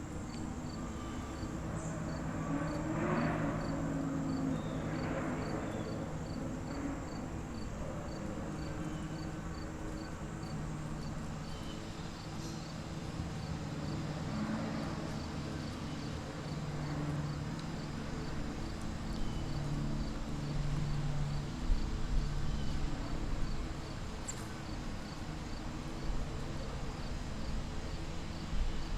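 Insects chirping in a steady rhythm, about two high chirps a second, over a continuous high buzz and a low background hum.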